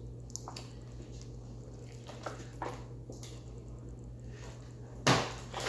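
Quiet pause over a low steady electrical hum, with a few faint taps and rustles from handling the cardboard toy box, then one louder short rustle or breath about five seconds in.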